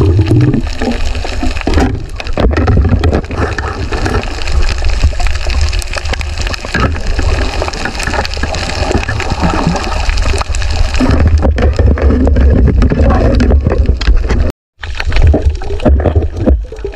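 Underwater noise on a camera held under the sea: a steady low rush of water with bubbling and many small crackling clicks. The sound cuts out completely for a moment about three-quarters of the way through.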